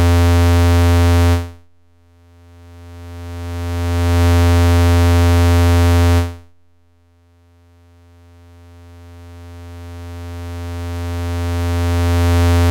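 Low, steady modular-synthesizer tone, full of overtones, shaped by the inverted (mirrored) output of a Make Noise Contour envelope generator. It cuts away suddenly about a second and a half in and swells back over about three seconds. It cuts away suddenly again around six seconds in, then swells back more slowly over about six seconds: each trigger makes the envelope's fast attack duck the sound and its decay bring it back.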